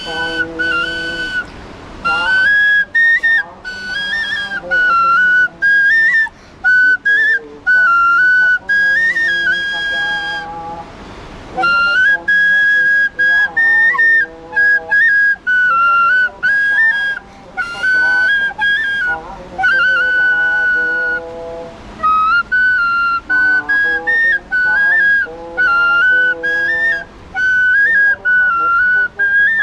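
A high, whistle-like flute melody played in stepwise repeating phrases over lower sustained accompanying tones, pausing briefly twice.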